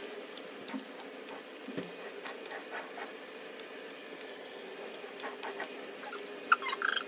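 Chicken and vegetables sizzling in a steel wok, a steady hiss, with scattered light knocks of a wooden spatula against the pan as the stir-fry is tossed. A sharper clack comes near the end.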